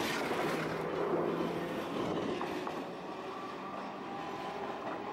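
Tosaden 600-series streetcar running close past on its rails and pulling away, with wheel-on-rail noise and a low motor hum. The sound eases off from about three seconds in as the car moves off.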